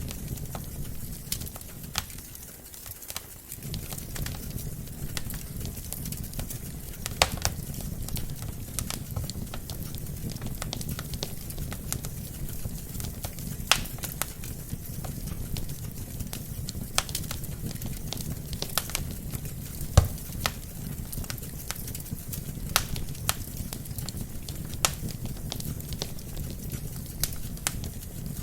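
Wood fire burning in a fireplace: a steady low rumble of flames with irregular crackles and sharp pops from the burning logs, a few pops louder than the rest.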